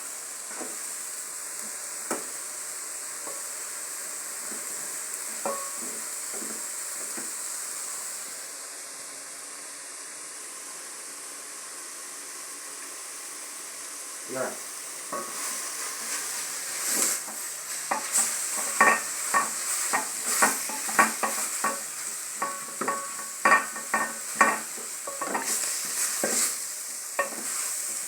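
Green vegetables and tomatoes sizzling steadily in a cooking pot; from about halfway a spoon scrapes and clinks repeatedly against the pot as they are stirred.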